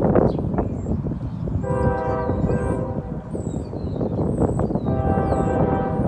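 A Norfolk Southern diesel locomotive's air horn sounds two long blasts, the first about two seconds in and the second near the end, over the low rumble of the approaching train.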